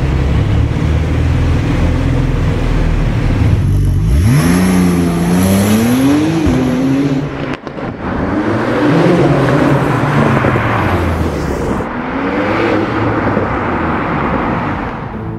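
Porsche 911 Turbo S twin-turbo 3.7-litre flat-six running low, then revving with a rising pitch about four seconds in. After a sudden break near the middle, the car accelerates and drives by, with another short rise in pitch near the end.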